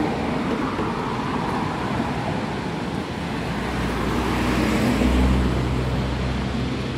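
A taxi drives past close by on the road, its engine hum swelling to a peak about five seconds in and then fading, over a steady rush of street noise.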